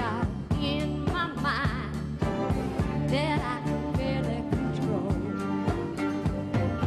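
A woman singing a country-pop song with vibrato over full band accompaniment with a steady drum beat.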